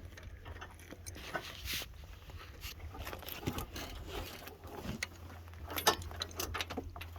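Irregular metallic clinks and scrapes of a lug wrench working on a wheel's lug nuts, over a steady low rumble.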